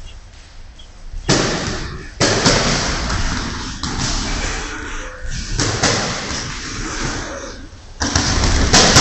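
Thuds and slams of an amateur boxing bout: feet stamping on the ring canvas and gloved punches landing. Several sudden loud knocks come about a second in, at two seconds, near the middle and near the end, each ringing on briefly in the hall.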